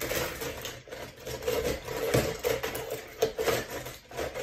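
Die-cast toy cars being stirred by hand in a plastic bowl: a continuous jumbled clatter and scraping of the small metal cars against each other and the bowl.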